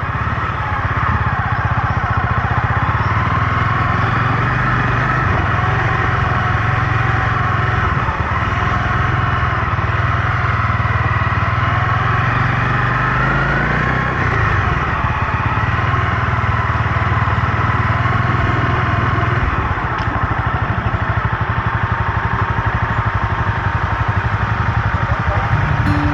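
Motorcycle engine running steadily under way, its pitch shifting slightly as the bike rides along.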